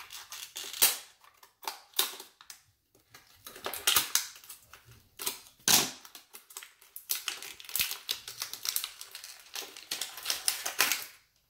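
Foil blind-bag packet crinkling and crackling as it is snipped open with scissors and unwrapped, giving a busy run of sharp crackles and clicks.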